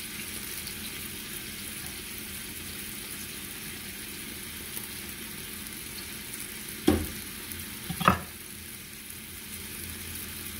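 Pork rib pieces sizzling steadily in a frying pan in a little soy-seasoned liquid. Two sharp knocks about a second apart come about two-thirds of the way through.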